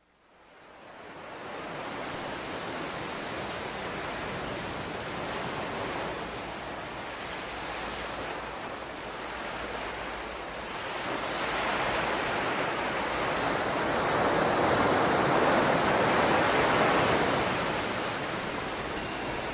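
A steady rushing noise that fades in over the first second or two, grows louder about two thirds of the way through, then eases off near the end.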